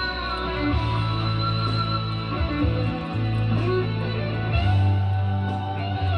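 Guitar-driven rock music with electric guitar and a steady bass line.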